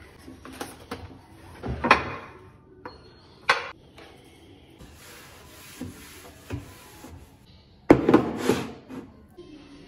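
Kitchenware being lifted out of a kitchen drawer, with knocks and clatters against the drawer, then a cloth rubbing across the drawer's bottom as it is wiped. A louder clatter comes near the end.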